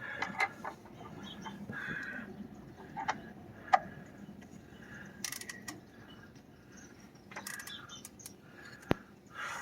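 A few scattered sharp metallic clicks and taps from a ratchet and socket as the 13 mm oil drain plug is threaded back into the oil pan and snugged.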